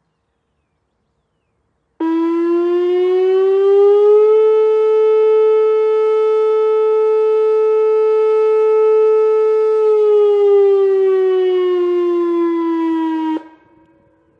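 Whelen WPS-2905 electronic outdoor warning siren sounding its alert tone. It starts abruptly, glides up over about two seconds to a steady pitch and holds it for about six seconds, then glides back down and cuts off sharply. The held pitch sits near 435 Hz rather than Whelen's usual 560 Hz, the sign of the older ESC-2020 controller with the 435 Hz glitch.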